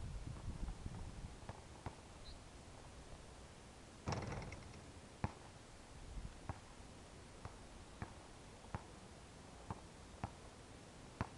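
Basketball bouncing on a hard outdoor court: sharp single thuds at uneven intervals, roughly one a second, with a short burst of noise about four seconds in and a low rumble at the start.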